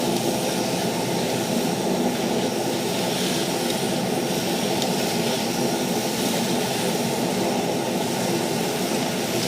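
A steady engine-like drone that holds an even level throughout.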